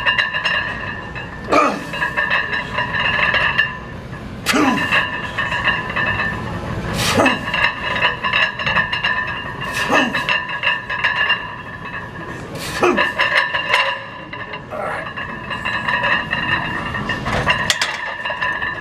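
A man grunting hard, falling in pitch, on each rep of a heavy barbell back squat, about every three seconds. Steady gym background music runs underneath.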